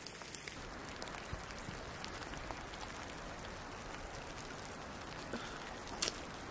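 Rain falling steadily, an even hiss flecked with small drop ticks, with one sharper click about six seconds in.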